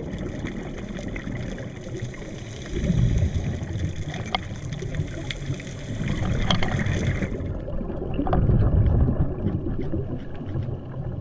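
Muffled underwater noise picked up by a camera in a waterproof housing on a scuba dive: a low rumble that swells twice, about three seconds and eight seconds in, with a few faint clicks.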